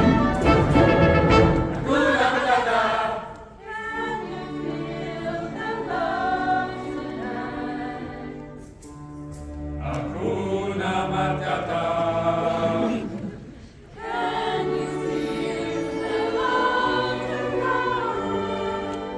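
Mixed choir singing with orchestral accompaniment, in phrases of about five seconds separated by short breaths, over sustained low bass notes.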